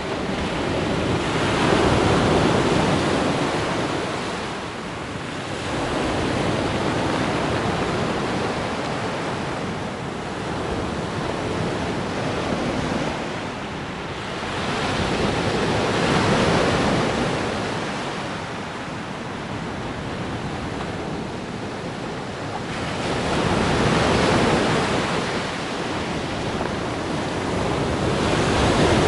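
Sea surf: waves rolling in and breaking on the shore, swelling and ebbing every several seconds.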